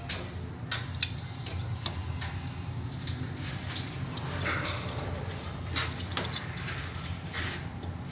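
Water dripping from a leaking joint in PPR water pipes under hydrostatic test pressure, heard as scattered small clicks and taps over a steady low hum.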